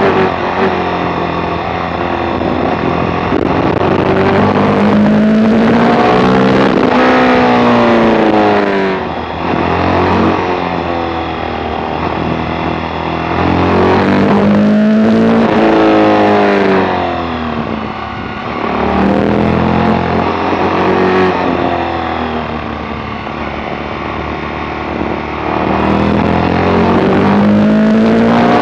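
Suzuki SV1000S's V-twin engine heard from on board while riding a twisty road. The revs climb and fall back about four times, easing off into the bends and pulling hard out of them.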